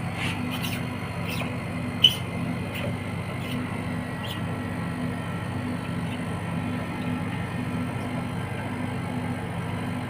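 Split air conditioner outdoor unit running in pump-down, its compressor and fan making a steady hum with a slight regular pulse. The refrigerant is pumped out of the lines, so the compressor is straining. A few sharp metallic clicks, the loudest about two seconds in, come from a hex key tightening the service valve.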